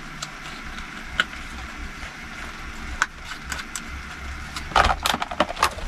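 Garlic frying gently in oil in a small pan on a camping stove's lowest flame, a faint steady sizzle, with scattered clicks of a utensil on the pan and a brief run of louder clatter near the end.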